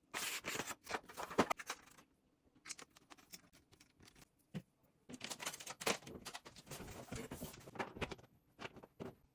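Irregular clicks, taps and rustling in clusters, with short quiet gaps.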